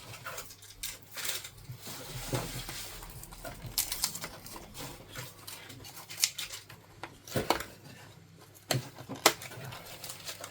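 Scattered clicks, light clatter and rustling of small items and packaging being handled and opened, with a couple of sharper clicks near the end.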